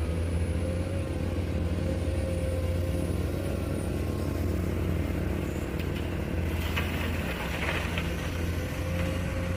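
Komatsu hydraulic excavator's diesel engine running steadily under load as it digs gravel. A short spell of rattling and clatter comes about seven seconds in as the bucket works the gravel pile.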